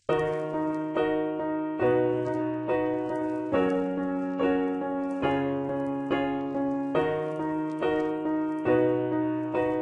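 Piano playing a slow instrumental intro to a pop love song, without vocals. It strikes repeated chords about one a second, and the bass note changes every second chord.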